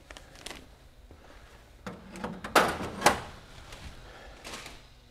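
Parts and packing being handled in a workshop: small clicks and rustles, then two knocks about half a second apart in the middle as something is bumped or set down.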